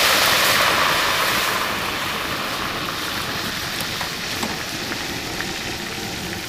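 Deep-frying oil in a pot on a propane burner sizzling hard as a batch of fries goes in, the sizzle easing off over the next few seconds. A couple of light clicks come about four seconds in.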